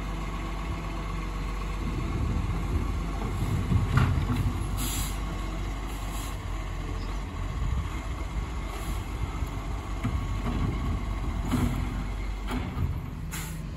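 Garbage truck's diesel engine running steadily while it works along the kerb, with a few sharp clanks and knocks as it handles the bins.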